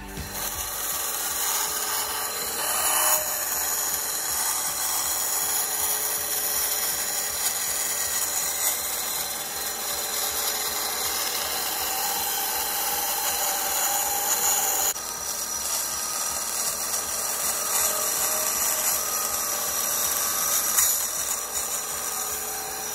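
Band saw running and cutting a curve through 3/8-inch plywood, a steady sawing noise throughout.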